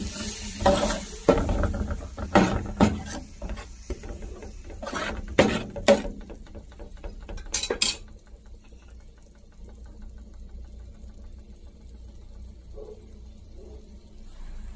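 A spoon stirring and scraping tomato purée and onion around a metal paella pan, with repeated knocks and scrapes against the pan. These stop about eight seconds in, leaving only a faint steady hiss of the pan cooking.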